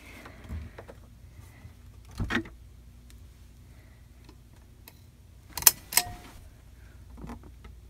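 Wooden furniture being handled in the dark: soft knocks and rattles as a cabinet is opened and rummaged, with a dull double knock about two seconds in and two sharp clicks, a third of a second apart, a little before six seconds.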